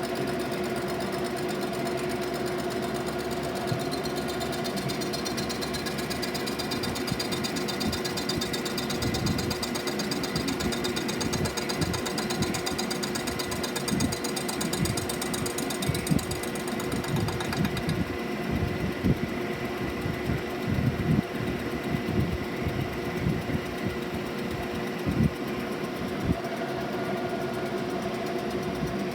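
DeVlieg machine tool running with a steady hum, its cutter machining a cast-iron Chrysler exhaust manifold. From about eight seconds in, an irregular clatter of knocks as the cutter bites into the casting, easing off near the end.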